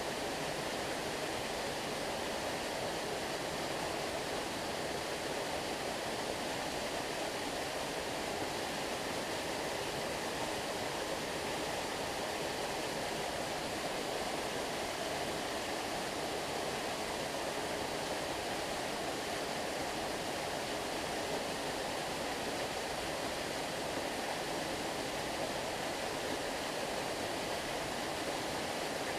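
Small waterfall, water falling and splashing in a steady, unbroken rush.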